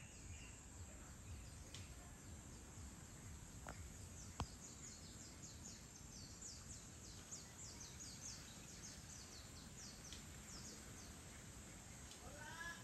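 Faint natural ambience with low background rumble. A bird gives a rapid series of short, high, downward-sliding chirps through the middle. A single sharp click comes just before the chirps, and a short rising call comes near the end.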